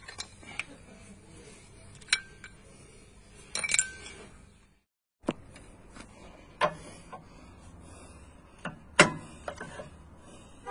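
Sharp metal clinks and knocks of a BMW E39 rear brake caliper and its pads being handled and fitted against the disc: about eight separate strikes, a few with a short ring, the loudest about nine seconds in. The sound drops out completely for a moment about five seconds in.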